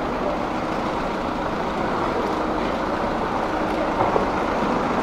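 Steady city street ambience: a continuous wash of noise, with a couple of faint knocks about four seconds in.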